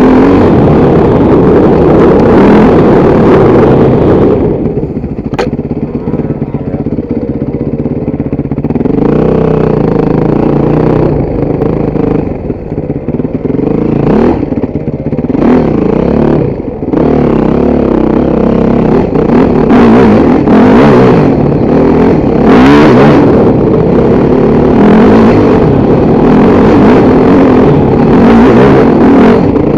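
Motorcycle engine running under way, its revs rising and falling again and again as the throttle is opened and closed. It is quieter for a few seconds about four seconds in, with one sharp click about five seconds in.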